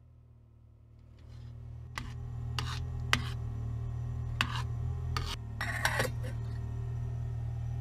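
A metal spoon stirring soup and clinking against a stainless steel pot, then a glass pot lid set on with a short rattle near the end. A steady low hum runs underneath.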